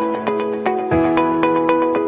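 Background music: gentle, new-age style instrumental with a steady run of plucked or struck notes over sustained bass notes that change about every second.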